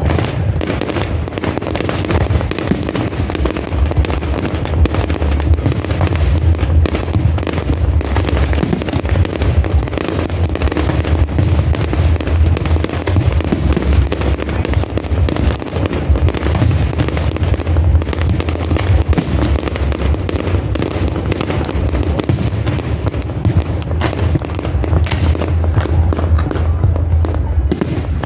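Aerial fireworks display: many shells bursting in quick, unbroken succession, a dense run of booms and crackles.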